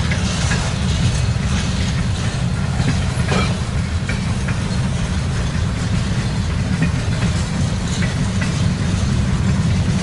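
Freight train boxcars rolling past, their wheels clicking and clanking over rail joints at irregular intervals under a steady low rumble, with wind on the microphone.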